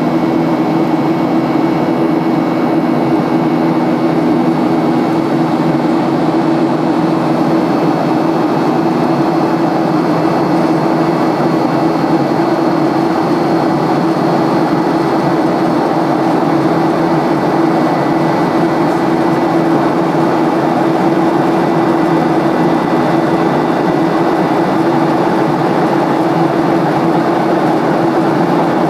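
Steady cabin drone of a Boeing 737-800 heard from inside the forward cabin: the CFM56-7B jet engines and rushing air make a constant hum with a few steady tones, one lower tone fading out about a third of the way through.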